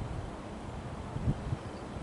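Wind buffeting the camcorder's microphone: an uneven low rumble with a louder bump just past halfway.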